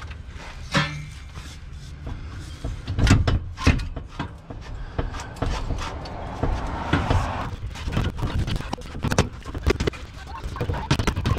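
Metal exhaust mid pipe being wrestled loose from under a car: irregular clunks and knocks as it is pulled and twisted, with a stretch of scraping about two-thirds of the way through.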